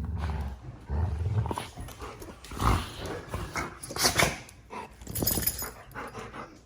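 A dog making sounds: low rumbles in the first second and a half, then a few short, sharp, noisy sounds around the middle.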